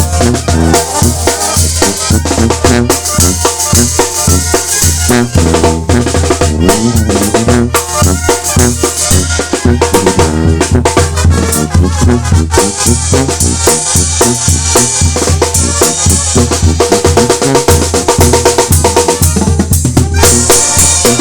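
Sinaloan-style banda playing an instrumental passage: brass and woodwinds over a heavy, steady bass line, driven by a continuous drum beat with snare and bass drum.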